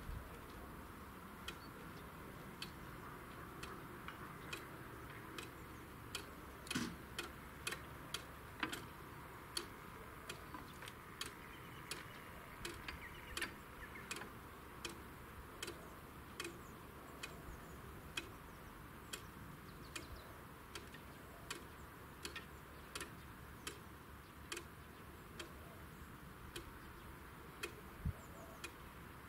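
Level-crossing warning bell striking in a long, fairly quick run of short, sharp strokes, about one to one and a half a second.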